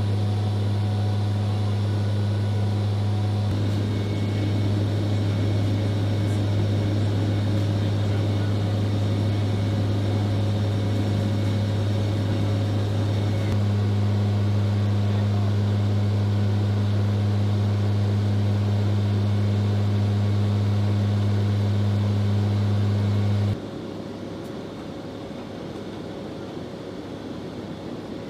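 Steady low drone of an MC-130J Commando II's four turboprops heard inside the cargo hold in flight, a deep even hum with a second tone an octave above over a rushing noise. The level drops abruptly about three-quarters of the way through.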